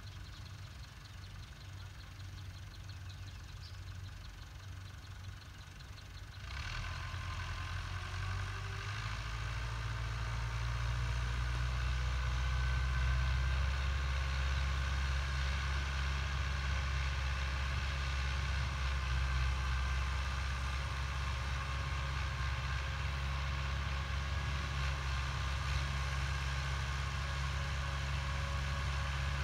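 Farm tractor's diesel engine running steadily under load as it pulls a cotton planter across a field, faint at first and growing louder as it draws near. The sound steps up suddenly about six seconds in and settles into a steady hum from about ten seconds on.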